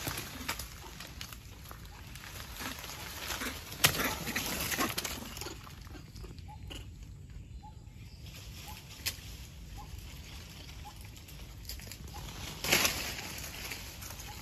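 Rustling and crackling of leaves and twigs, with sharp snaps about four and nine seconds in and a louder rustle near the end. A few faint short chirps sound in the middle.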